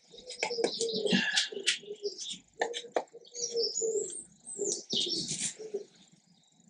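Birds calling, with a low, repeated cooing and some higher chirps, over a few sharp metallic clicks from brake parts being handled.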